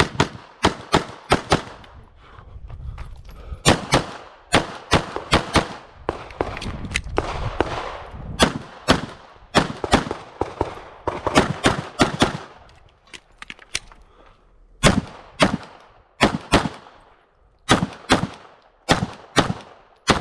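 Glock 17 9mm pistol firing dozens of rapid shots, many in quick pairs, with short breaks between groups of shots.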